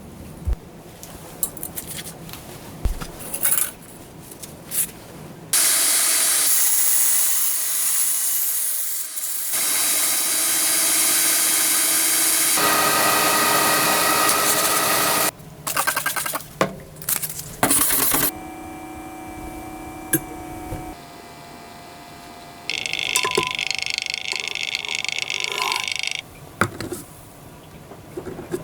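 Knifemaking workshop sounds in a run of short cuts: a few sharp metal clicks and taps, then power tools running in several loud stretches that start and stop abruptly, some with a steady whine.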